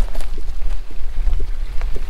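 Footsteps crunching on a gravel track, irregular steps at walking pace, over a steady low wind rumble on the microphone.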